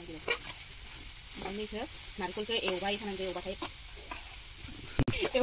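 Metal spatula scraping and stirring grated coconut and semolina roasting in a steel kadai, with a light sizzle and faint voices in the background at times.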